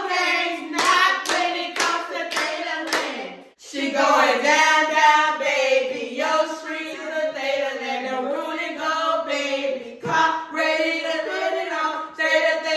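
Several women chanting and singing in unison in a sorority probate routine, with about six sharp hand claps at roughly two a second in the first three seconds.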